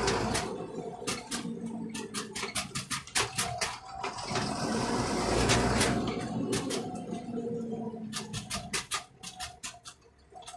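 Deutz tractor engine running while driving, heard from inside the cab, with frequent irregular clatters and rattles over it. It goes quieter briefly near the end.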